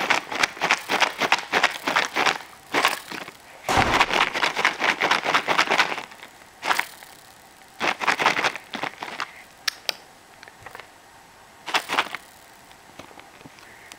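A cat eating, with rapid crunching and chewing clicks in bursts and pauses between them: longest in the first six seconds, then shorter bursts and a few scattered ticks.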